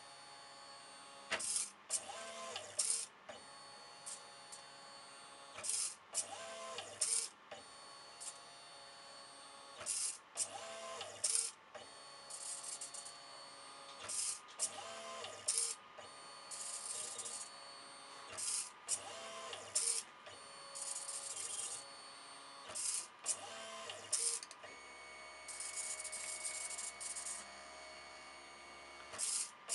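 Stepper motors of a GRBL pen plotter driving the brush-pen carriage back and forth along halftone raster lines: a steady motor whine in stepped pitches, broken by a short loud burst about every second or so. Near the end the tones change as the feed rate outruns the rate at which commands reach the controller, so the motion is no longer smooth.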